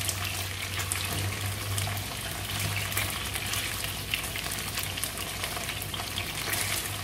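Cornstarch-coated red snapper head pieces shallow-frying in hot oil in a non-stick wok: a steady sizzle with scattered crackles and a few sharper pops as the pieces are turned with wooden chopsticks. A low steady hum runs underneath.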